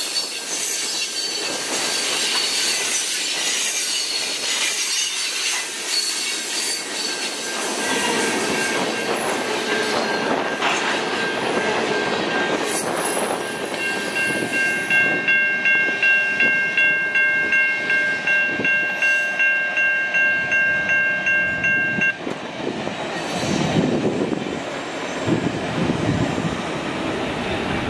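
Freight train of tank cars and covered hoppers rolling past close by, with steel wheel squeal and rail clatter. About halfway through, a grade-crossing warning bell rings rapidly, about two strokes a second, and cuts off suddenly; a lower rail rumble follows.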